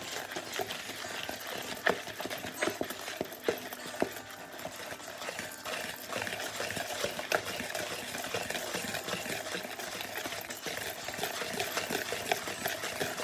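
Hand whisk beating a thick mixture in a plastic mixing bowl: rapid, even clicking and scraping of the wire whisk against the bowl, with a few louder knocks in the first few seconds.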